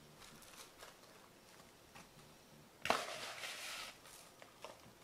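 Granular brown-sugar and salt dry-brine mix poured from a plastic tub onto tuna strips in a plastic container: a sharp knock about three seconds in, then about a second of grainy hiss, with faint handling clicks and taps otherwise.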